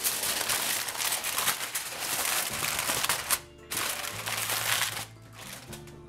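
Aluminum foil crinkling as it is pressed and crimped over a baking pan, in two spells with a short pause about three and a half seconds in. Soft background music runs underneath.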